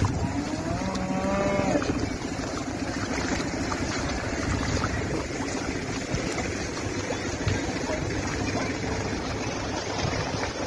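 A cow mooing once, a drawn-out call in the first couple of seconds, over a steady rush of wind and floodwater noise.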